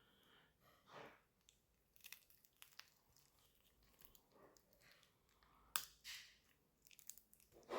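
Faint, scattered crackles from the crisp skin of a roasted pork knuckle being split open, with one sharper crack about six seconds in.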